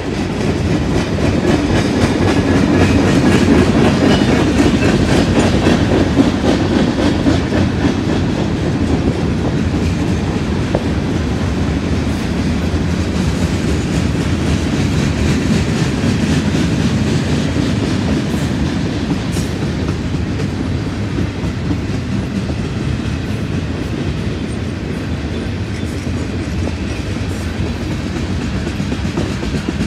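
A long CSX freight train's cars rolling past: tank cars and covered hoppers on steel wheels make a steady rumble with rapid clickety-clack over the track. It is loudest a few seconds in and eases a little after that.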